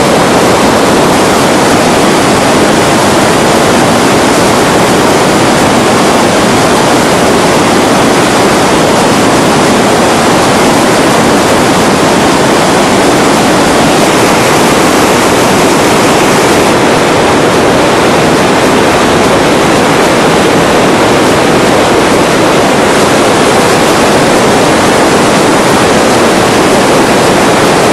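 Mountain stream rushing loudly and steadily.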